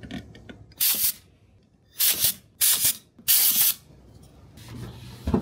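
Four short hissing bursts of spray, each under half a second, followed by a sharp knock near the end.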